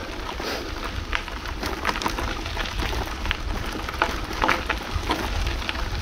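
Wind rumbling on the microphone of a moving bicycle, with scattered short crackling clicks.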